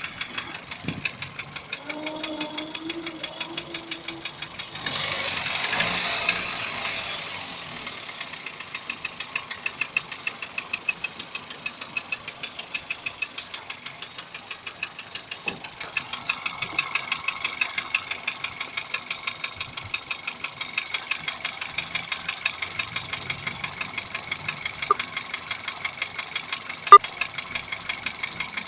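Daihatsu 1.3 turbo engine running with a regular knock, about two sharp taps a second. A swell of louder noise comes about five seconds in, and there is one sharp click near the end, the loudest sound. The cause of the knock is unknown to the owner.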